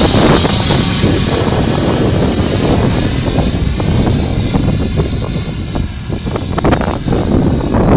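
105mm electric ducted fan of a J-10A model jet in flight, breathing through cheater holes: a steady high whine over a rushing jet-like noise, easing slightly about five to six seconds in and building again near the end. Wind buffets the microphone underneath.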